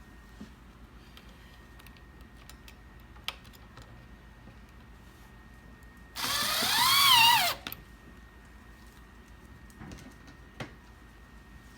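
Power drill driving a screw into a footstool leg in one burst of about a second and a half, its motor pitch wavering as the screw bites. A few faint knocks and clicks of handling come before and after.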